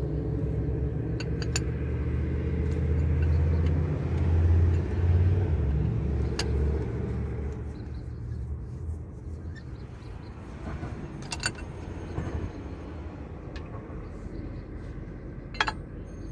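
A vehicle engine rumbles low, swelling about four to six seconds in and fading after about eight seconds. A few sharp metallic clicks come from hand tools against the steel hydraulic control valve block.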